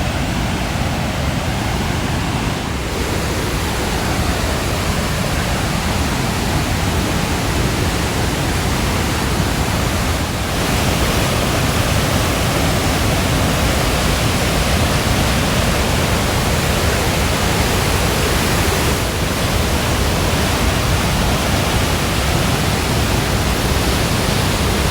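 Murchison Falls: the Nile pouring through a narrow rock gorge, a loud, steady rush of falling water that grows a little louder about ten seconds in.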